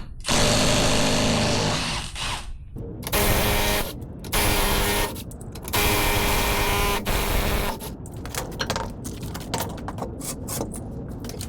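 Impact wrench loosening wheel lug nuts, running in four bursts of a loud mechanical buzz, followed by a run of quick clicks and clatter.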